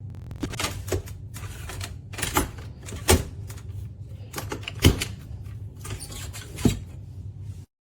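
Shelf parts of a power tool organizer knocking and clattering as they are handled and fitted together, with three louder knocks about three, five and seven seconds in. The sound cuts off suddenly near the end.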